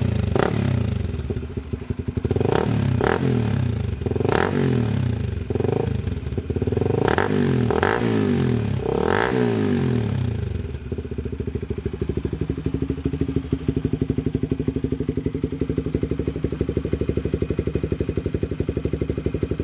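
Honda CBR150's single-cylinder engine running through an R9 Racing aftermarket muffler, revved in a series of about eight quick throttle blips, then settling back to a steady idle for the last several seconds.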